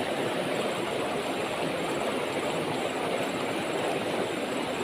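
Steady rush of a shallow, fast river flowing over rocks.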